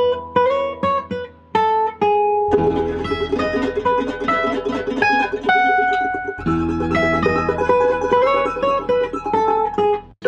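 Outro music played on plucked string instruments: a quick run of plucked notes over a held low bass, with short breaks about two and six seconds in.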